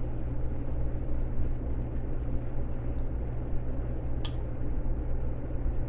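Steady low room hum, with a few faint ticks and one sharp click about four seconds in from handling the folding knife.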